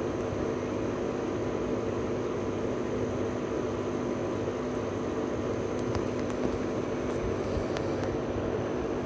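Aquarium pump running with a steady hum and hiss. A few light ticks come in during the last few seconds.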